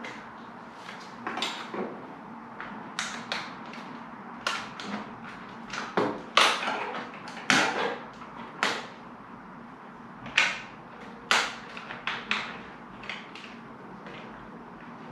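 Irregular sharp knocks and clicks as glazing packers are pushed and tapped into place around a double-glazed unit in a UPVC window frame. The loudest knocks come in the middle.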